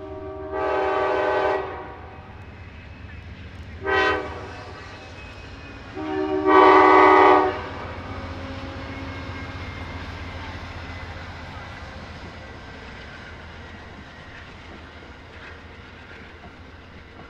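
Horn of the lead Amtrak GE P42DC diesel locomotive sounding for a grade crossing: a long blast, a short blast, then a longer, louder blast. Afterwards the train rumbles past over the rails, the sound slowly fading.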